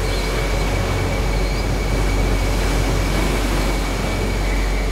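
Ambient soundscape: a steady, deep rumbling noise with a thin high tone held steady above it and faint sustained low notes beneath.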